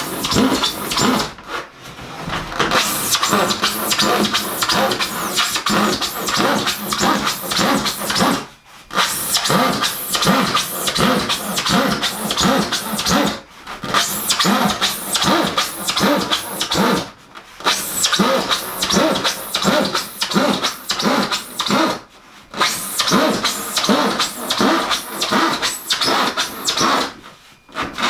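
Background music with a fast, steady beat and dense electronic sounds, dropping out briefly every four or five seconds.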